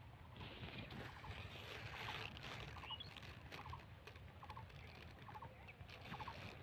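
Faint outdoor ambience: a low rumble of wind or handling, with a soft clicking call repeated about every half second and a brief high chirp or two.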